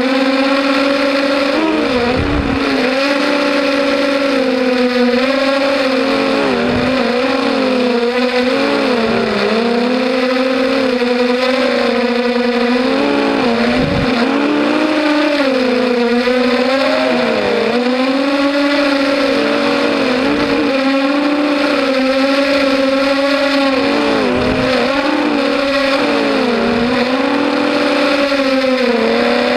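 250-size FPV racing quadcopter flying, its motors and propellers giving a loud buzzing whine that keeps rising and falling in pitch with the throttle.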